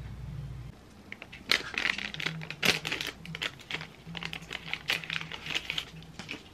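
A paper tea sachet being torn open and crinkled as the tea bag is pulled out: a quick run of sharp crackles and rustles starting about a second and a half in.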